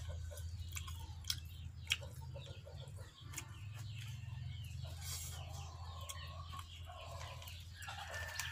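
A person chewing a spicy packet snack, with two short sharp snaps about one and two seconds in. Chickens cluck in the background.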